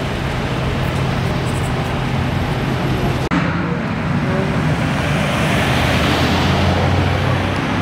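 Car engine running with road noise. The sound breaks off sharply about three seconds in, then a broad rush of noise swells and fades, like a car going by.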